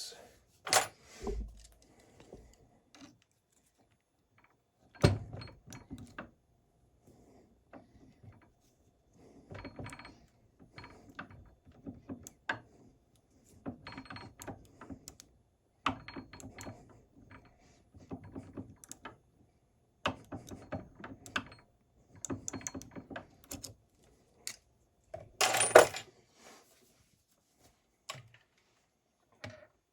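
Key being worked in an antique Corbin padlock for impressioning: repeated short bursts of metallic clicking and rattling as the key is turned and wiggled against the lock's pins to raise marks on it, with the loudest burst near the end.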